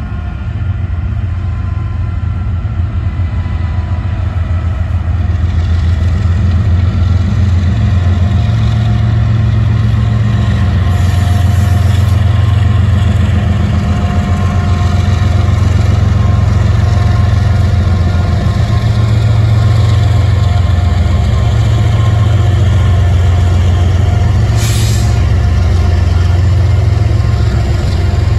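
Union Pacific diesel-electric freight locomotives running as they pass slowly, a loud, deep engine drone with a steady whine above it that grows louder about eight seconds in as the units draw level. One short sharp sound about 25 seconds in.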